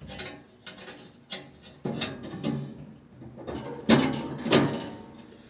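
Metal clinks and knocks from hand work on a furnace's gas valve fittings as the pilot gas line and thermocouple are put back on: a string of separate knocks, the loudest about four seconds in.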